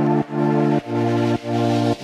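Electronic background music: sustained synth chords pulsing with a short break about twice a second.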